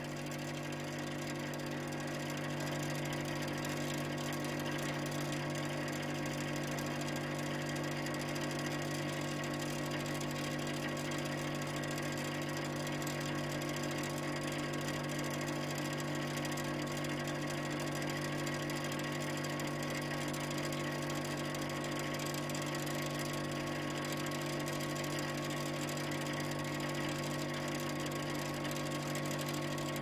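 Industrial refrigeration plant running: a steady machine hum with several constant tones over a dense noisy bed. It grows a little louder over the first few seconds, then holds level.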